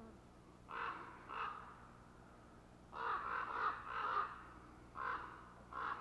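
Crows cawing over and over: two single caws, then a quick run of about four, then two more. These are alarm calls, the birds scolding an intruder near their nest.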